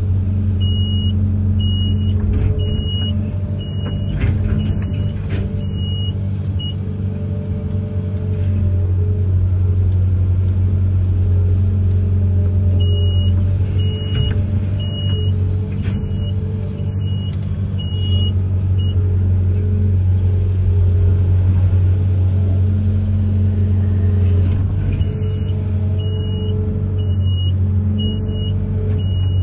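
Amphibious excavator's diesel engine running steadily, with a high warning beeper sounding about one and a half times a second in three runs of several seconds each.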